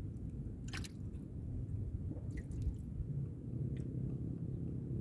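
Water dripping and lapping against a small fishing boat: a few short, sharp drips and splashes, the clearest about a second in, over a steady low rumble.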